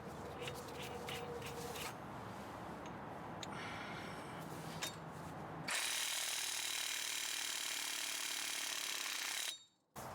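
A few faint ratchet clicks, then an impact wrench runs steadily for about four seconds, spinning a new front hub assembly nut onto the axle, and cuts off abruptly near the end.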